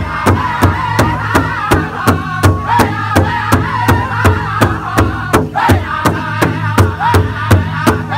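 Powwow drum group singing: several men's high-pitched voices in unison over a big powwow drum struck together in a steady beat of about three and a half strokes a second.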